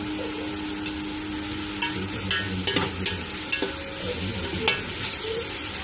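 Sliced onions sizzling in hot oil in a large aluminium pot as they sauté toward golden brown. From about two seconds in, a metal slotted spoon stirs them, scraping and clicking against the pot.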